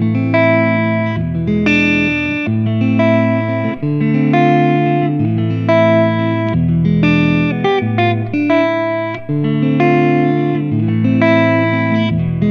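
Electric guitar played through a Valeton GP-100 multi-effects unit on a clean preset, picking a song's chord progression with the notes ringing and the chords changing every second or so.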